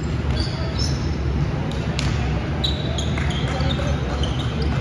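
Indoor basketball game: a ball bouncing on the court with sharp knocks, and many short high squeaks of sneakers on the floor, over a steady low rumble of hall noise and voices.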